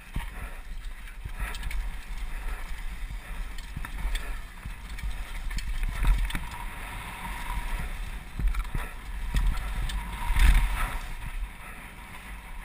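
Mountain bike descending a dusty dirt trail at speed: a steady low rumble of tyres and wind, with frequent rattles and knocks from the bike over bumps, loudest about ten seconds in.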